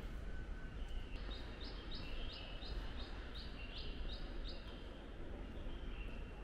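A small bird singing a run of about a dozen short, high, repeated notes, about three a second, with a few single chirps before and after, over a steady low outdoor rumble.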